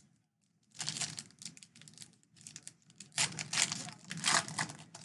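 Baseball card pack wrapper crinkling and tearing as it is opened. The rapid crackly rustling starts about a second in and is loudest in two spells past the middle.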